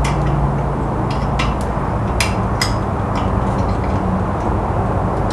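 Irregular sharp metallic clicks and ticks of an Allen key working the bolts under a belt grinder's work table as they are snugged down, over a steady low background rumble.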